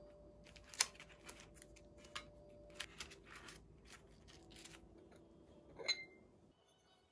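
Quiet clicks, taps and rustles of hands sorting sticker sheets in a metal tin. About six seconds in, a ceramic bowl clinks with a short ring.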